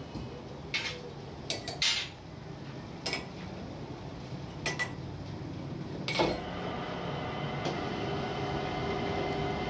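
A few sharp metal-on-metal clanks as a workpiece is set in a metal lathe's four-jaw chuck. About six seconds in, the lathe starts and runs with a steady hum as the chuck spins.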